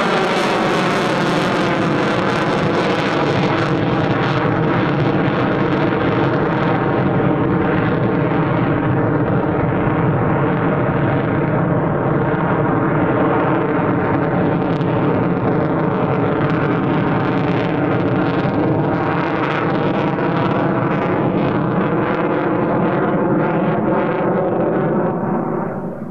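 Mitsubishi F-2 fighter's F110 turbofan jet noise in flight: a loud, sustained sound whose pitch falls over the first few seconds as the jet passes and its hiss fades back. It then holds steady and drops off near the end.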